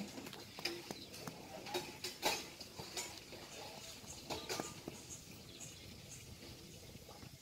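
Hands scraping and patting loose sand, as irregular short scratches and rustles that thin out in the last couple of seconds.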